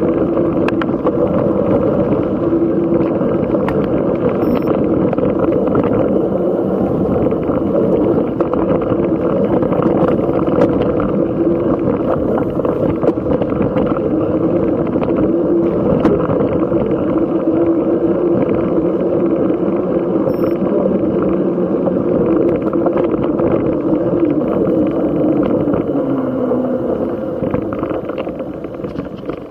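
Mountain bike rolling fast along a dirt trail: a steady, loud rush of tyre and wind noise on the bike-mounted camera's microphone, with a hum that drops in pitch and fades as the bike slows near the end.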